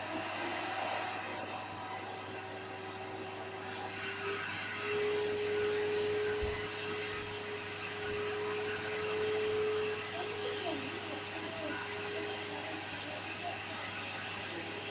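Household vacuum cleaner switched on, its motor spinning up with a rising whine and then running steadily with a high whine over a rushing air noise. The pitch shifts up slightly about four seconds in.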